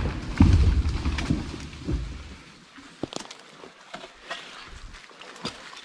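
A small felled conifer crashing down through brush, with branches snapping and a heavy low thud over the first two seconds. Scattered cracks and rustles follow as the limbs settle.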